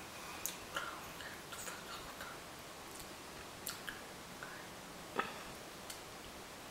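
Scattered faint clicks and smacks from a person signing: hands meeting, a bracelet and watch moving, and lips and mouth working, with the sharpest click about five seconds in. No speech, only quiet room tone between the clicks.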